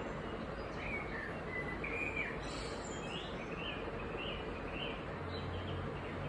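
A bird chirping a string of short calls that bend up and down in pitch, the last four evenly spaced, over a steady background hiss with a faint hum.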